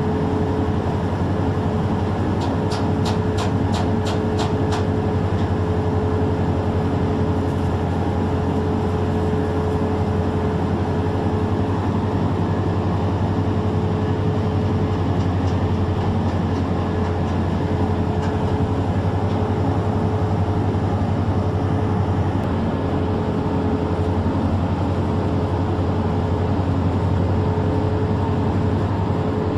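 Steady low drone of a ship's machinery with a constant hum, unchanging throughout. A quick run of sharp ticks comes about three seconds in.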